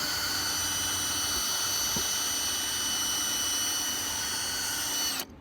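Electric drill running steadily with a high whine as it drills out a rivet in a diecast model car. The drill stops abruptly about five seconds in, and the rivet is left loose.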